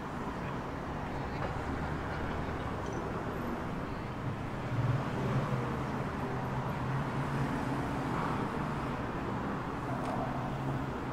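Distant city traffic: a steady low rumble of road vehicles, swelling slightly about five seconds in.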